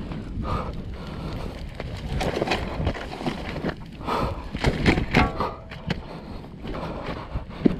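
Petrol fire crackling on a burning pit bike, with irregular scuffs and knocks from someone moving right beside it.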